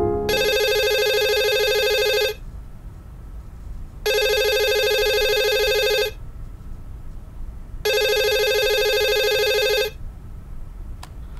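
Corded desk telephone ringing: three rings of about two seconds each, about four seconds apart.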